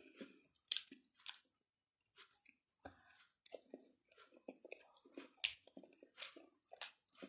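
Close-up mouth sounds of a person eating with her hands: wet chewing and lip smacks in short irregular bursts, with finger-licking smacks later on.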